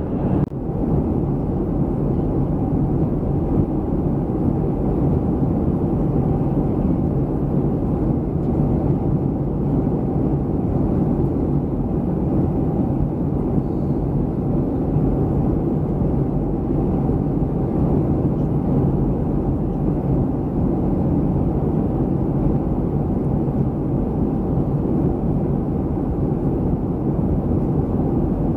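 Steady low rumble of cabin noise inside a Boeing 737-300 in flight: engine and airflow noise heard from the passenger seat. It is briefly broken by a click about half a second in.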